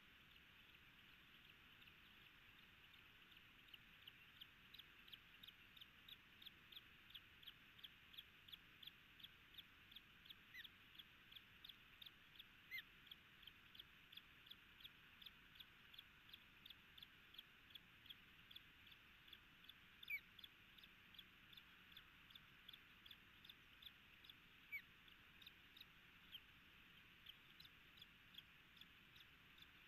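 Ospreys at the nest peeping: a long, even run of short high chirps, about two or three a second, starting a few seconds in, with a few louder sliding calls among them.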